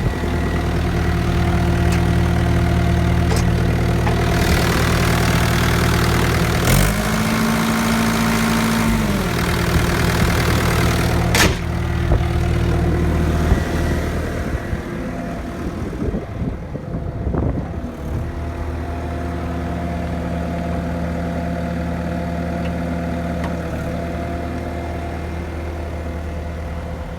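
Bobcat T770 skid steer's diesel engine running at idle, revved up briefly about seven seconds in and then dropping back to idle. A single sharp click comes a few seconds after the rev.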